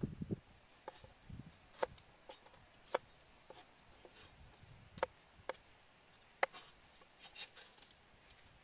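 Cleaver knocking on a thick wooden chopping block while garlic and herbs are cut and handled: about a dozen sharp, irregular knocks, with a couple of duller thumps in the first second and a half.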